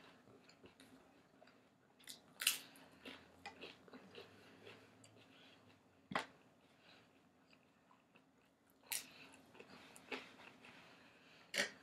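Faint chewing and eating of a breaded chicken cutlet torn apart by hand, with a few short sharp clicks and taps scattered through.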